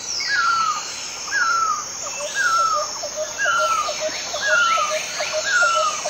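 Great barbet calling: a plaintive falling note repeated about once a second, with a quicker run of short lower notes beneath it. A steady high insect buzz goes on behind.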